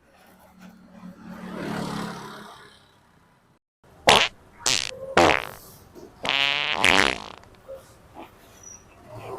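Prank fart noises: a drawn-out low one first, then, after a moment of dead silence, several short loud blasts and a longer wavering one.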